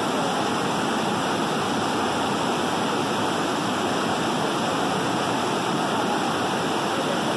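Whitewater rapids of a river pouring over a rock ledge: a steady, even rush of water.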